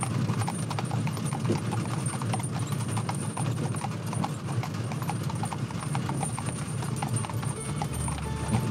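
Hooves of a pair of harnessed horses clip-clopping on a tarmac road as they pull a cart, a quick, uneven run of sharp knocks.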